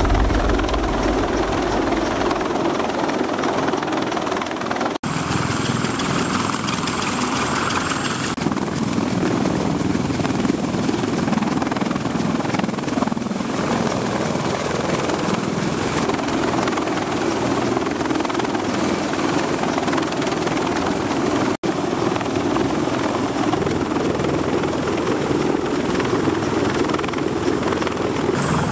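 A CH-53 heavy-lift helicopter hovering close overhead, its rotors and engines making a loud, steady roar. The roar drops out for a split second twice.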